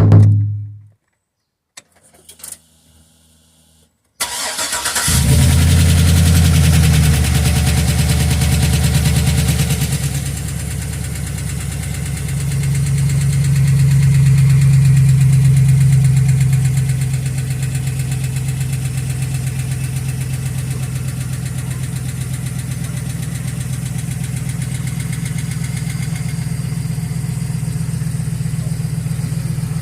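Hummer H2's 6.0-litre V8 started about four seconds in, running at a fast idle, rising again for a few seconds midway, then settling to a steady idle. It carries an abnormal noise that the owner cannot place and fears is a failed part.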